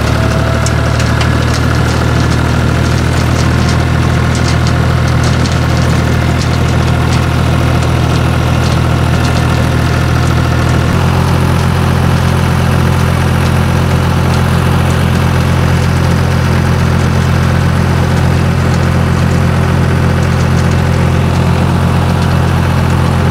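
Fiat 500 Special tractor's diesel engine running steadily under load, driving a rotary tiller through the power take-off. The engine note shifts abruptly about halfway through.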